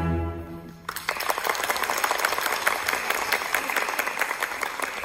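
Orchestral string music dies away on a final held note, and about a second in the audience breaks into applause, steady clapping that carries on through the rest.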